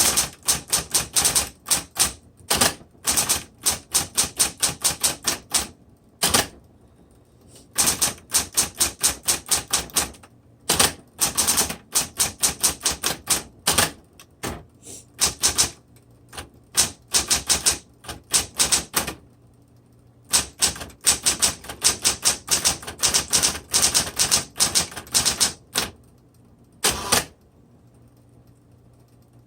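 Smith Corona Coronet Automatic 12 electric typewriter being typed on: quick runs of sharp key strikes, several a second, broken by short pauses, over a faint low steady hum.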